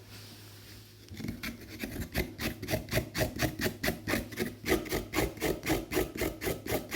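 A carrot being grated on the fish scaler of a Victorinox Angler Swiss Army knife: rapid rasping strokes, about four a second, starting about a second in.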